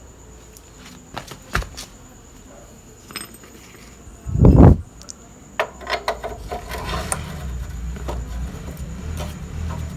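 Metal parts and tools clinking and knocking during hand work on a motorcycle's rear wheel assembly, with one heavy thud about four and a half seconds in, then a low steady rumble under further clinks.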